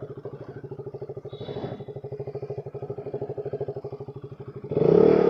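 KTM RC 200's single-cylinder engine running at a steady, evenly pulsing idle as the bike is eased over rough ground. It gets suddenly louder for a moment near the end.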